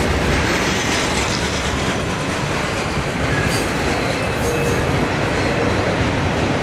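Intermodal freight train cars rolling past: a steady rumble and clatter of steel wheels on the rails, with a few faint, brief high squeals about halfway through.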